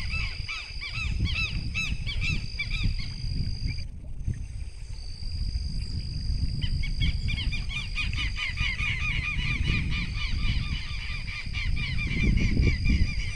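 Southern lapwings (quero-quero) calling: runs of rapid, strident repeated notes that stop for a couple of seconds around the middle, then start again.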